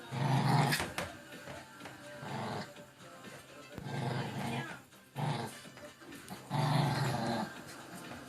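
Pomapoo puppy growling in short bursts, about five in a few seconds, with music in the background.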